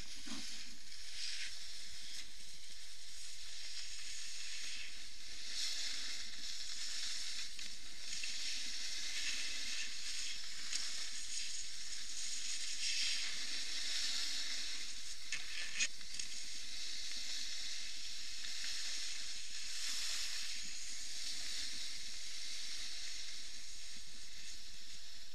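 Snowboard sliding and scraping over packed snow: a steady hiss, with a couple of brief clicks around the middle.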